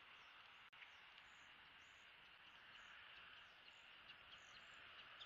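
Faint outdoor ambience of insects and small birds: a steady high insect hiss with scattered short, high chirps. There is a brief gap in the sound under a second in.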